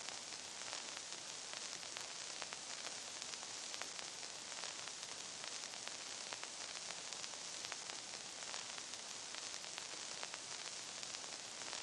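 Steady hiss with many small crackles scattered through it: the surface noise of an old film soundtrack, with no music or voice over it.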